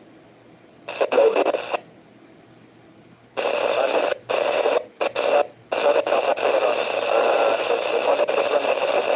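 Radio transceiver's speaker receiving a noisy transmission with no clear words: a short burst of static about a second in, then the signal returns about three and a half seconds in, breaking up in short gaps before holding steady.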